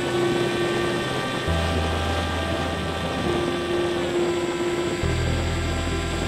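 Electric motor and propeller of a Bixler 3 RC plane whining steadily in flight, its pitch dipping slightly about four seconds in as the throttle changes.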